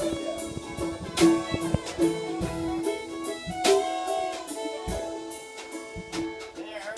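Live bluegrass band playing an instrumental passage: fiddle holding long bowed notes over mandolin and acoustic guitar picking, with drum and cymbal hits about once a second.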